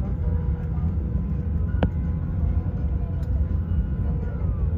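Steady low rumble of an Airbus A320 cabin, with faint steady hums above it and a single sharp click about two seconds in.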